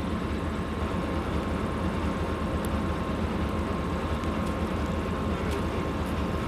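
2M62U diesel locomotive's two-stroke V12 diesel engine idling while the train stands at the platform: a loud, steady, throbbing low rumble with a thin steady whine above it.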